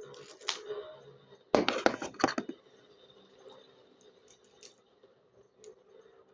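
Lock picks scratching and clicking in a padlock, with a loud burst of metal rattling and clicking about one and a half seconds in that lasts under a second, then a few faint ticks.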